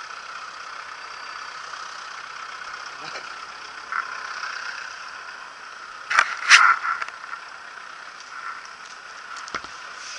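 Steady engine and street noise, with a pitchfork scraping and knocking through manure on the pavement, loudest in a short cluster about six seconds in.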